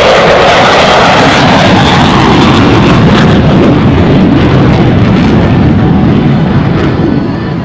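Dassault Rafale fighter's twin jet engines running loud during a display pass, a dense jet noise that holds steady and starts to fade near the end as the aircraft draws away.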